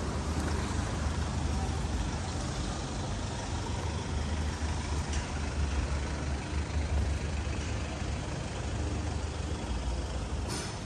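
City street traffic, with a heavy vehicle's engine running close by as a steady low rumble.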